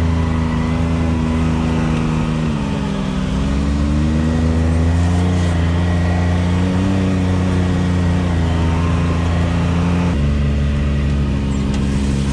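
Can-Am Maverick X3 Turbo RR's turbocharged three-cylinder engine running at low trail speed, its pitch dipping and rising with the throttle a couple of times. About ten seconds in the sound switches abruptly to a steadier engine drone.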